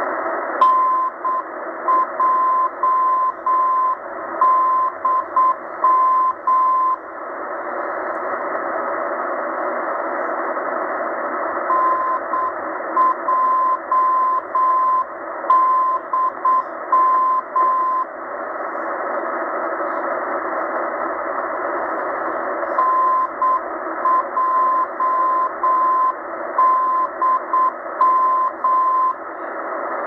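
Morse code (CW) tone of about 1 kHz from a Tecsun H-501x shortwave receiver in upper-sideband mode, sending the letters NJDM over steady band hiss. The call is sent three times, each about six seconds long, with pauses of hiss between. The keying is uneven, which the listener takes for hand sending or a poor recording of the sending.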